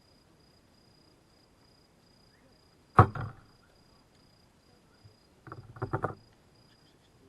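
Campfire wood popping: one sharp, loud crack about three seconds in, then a quick run of smaller crackles near the end. A faint, steady high insect trill runs underneath.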